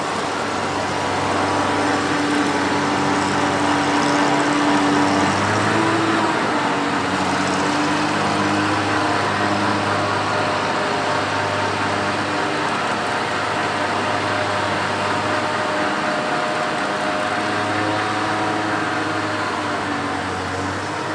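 Oliver 430 combine running steadily while harvesting wheat: a constant engine drone with the whir of its threshing machinery, its pitch shifting slightly about five to six seconds in.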